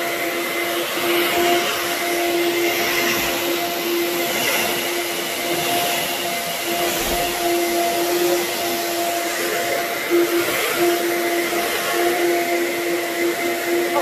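Anway Clear Trak (Workhorse) upright vacuum cleaner running steadily while pushed back and forth over a rug: a steady motor hum over a rush of air.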